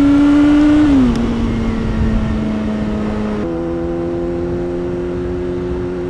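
Yamaha R6 inline-four sport bike engine heard while riding. Its note climbs slightly, then drops about a second in as the throttle is eased off. It runs at a steady lower pitch and shifts to a different note about three and a half seconds in, with steady wind and road rush underneath.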